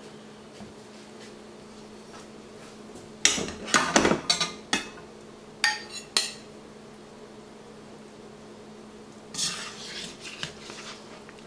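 A metal serving spoon clinking and scraping against a bowl and a wok as food is served. There is a cluster of clatters about three to five seconds in, two sharp clinks around six seconds, and softer scraping near the end, over a steady low hum.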